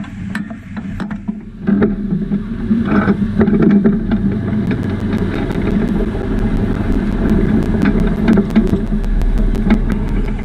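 410 sprint car's methanol V8 running at low speed as the car rolls slowly, with frequent sharp clicks and rattles from the car; it gets louder about two seconds in.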